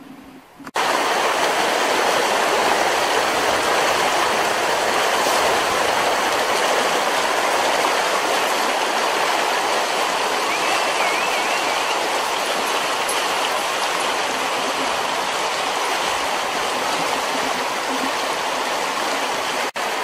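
Fast-flowing creek running high, water rushing steadily over its rocky bed. It starts suddenly just under a second in and drops out for an instant near the end.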